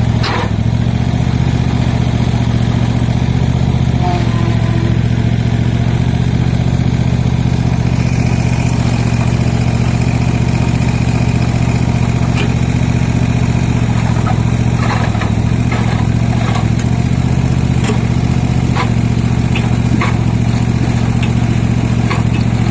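Cub Cadet ZT1 Ultima zero-turn mower engine running steadily, driving the hydraulic pump of a homemade excavator attachment. A thin high whine joins about eight seconds in, and several short knocks come near the end.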